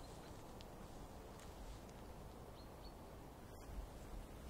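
Faint mountain-forest ambience: a low steady rumble with a few short, high bird chirps.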